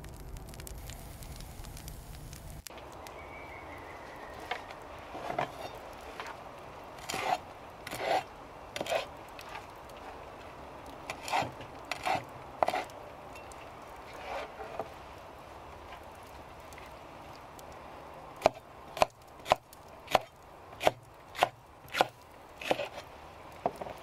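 A large knife chopping on a wooden cutting board, cutting fresh herbs and green chillies. Irregular chops come first, then near the end a regular run of about nine sharp strikes, a little under two a second.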